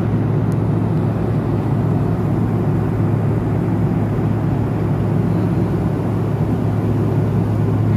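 Airliner cabin noise in cruise flight: a steady low drone of engines and airflow, even in loudness throughout.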